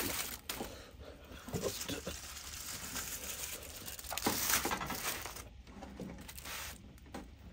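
Aluminium foil crinkling in irregular bursts as foil-wrapped fish parcels are handled and laid on a wire barbecue grill.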